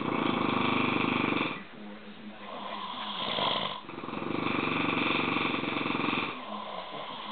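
Sleeping Neapolitan mastiff snoring: long rattling snores, the loudest at the start and another about four seconds in, with a shorter snort and quieter breathing between them.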